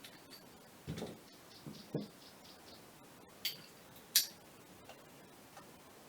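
Small screws being fitted and driven into the cover of a Scania electronic clutch actuator: scattered light clicks and knocks of screws and tools on the housing, the sharpest a little after four seconds, with faint quick ticking between them.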